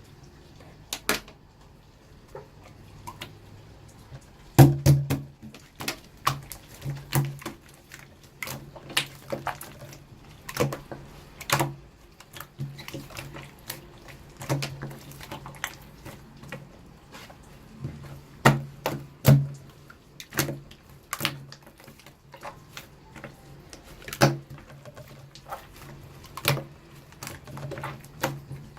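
Slime being squished and pressed by hand, making irregular sharp clicks and pops, a few a second.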